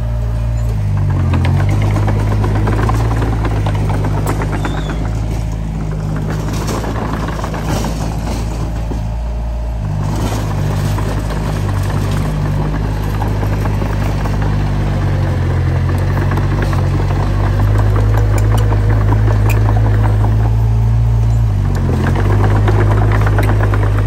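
Diesel engine of a Komatsu D20P bulldozer running steadily, with a dense rattle over it. The engine's pitch dips briefly about a second in and again near the end.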